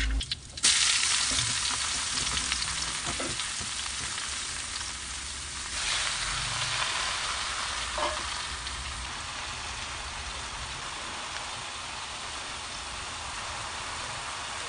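Chopped garlic and jelly ear mushrooms sizzling in hot oil as they are stir-fried in a pan. The sizzle starts suddenly about half a second in, swells again around six seconds, then eases to a steady sizzle.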